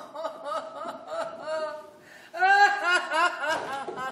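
A woman sobbing aloud in a rapid run of short, pitched, wailing gasps, growing louder a little over two seconds in.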